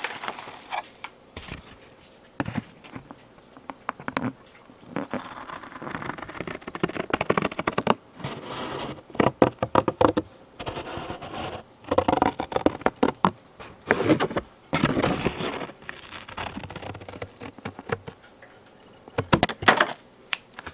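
Funko Pop cardboard box being pulled apart by hand, its side panel separated from the back panel: irregular bursts of tearing and scraping cardboard, with crackles and taps between them.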